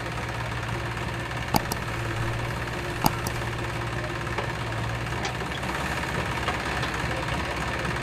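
Diesel engine of a JCB 3DX backhoe loader running steadily as it digs soil and swings the bucket to load a trailer. Two sharp knocks come about a second and a half in and again about three seconds in.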